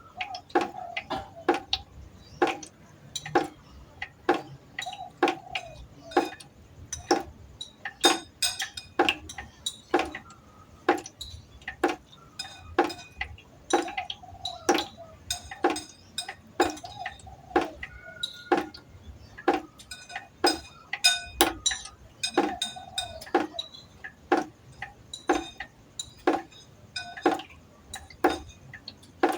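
Water drops falling into pots, each drop a sharp plink with a short ringing tone, coming irregularly at about one to two a second.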